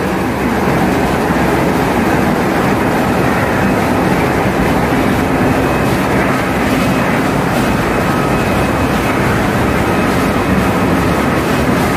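Loud, steady machinery noise in a tanker's engine room: engines, pumps and fans running together as one even din, with faint steady whines over it.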